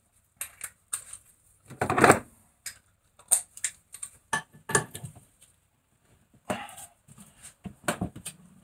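Socket wrench and extension bar clicking and clinking against the bolts of a brake disc hub held in a vise: irregular sharp metal clicks, with a denser clatter about two seconds in and more clustered clicks near the end.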